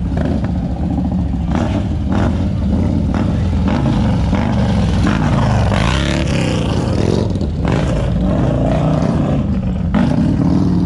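Motorcycle engines running close by, with one rising and falling in a rev about six seconds in.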